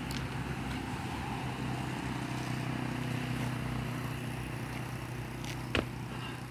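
Steady low hum of road traffic, a vehicle engine running, with a single sharp knock near the end.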